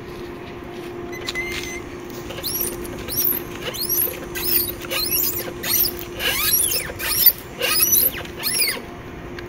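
A series of about a dozen high-pitched, squeaky chirps, roughly two a second, starting a couple of seconds in, from a small animal, over a steady low hum.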